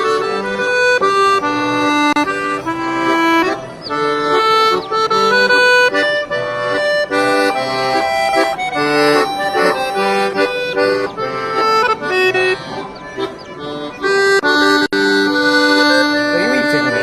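Accordion playing a tune: a melody moving over held chords.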